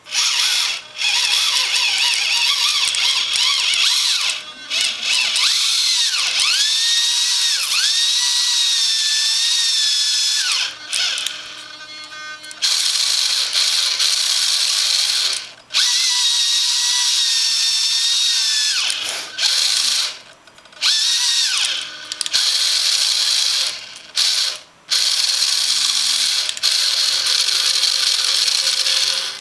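Model sailboat sail winch's electric motor and gears whining as it winds its line drum, hauling up and lowering a small battery hanging on the line. It runs in several spells with brief stops, its pitch rising as it speeds up, holding steady, then falling as it slows.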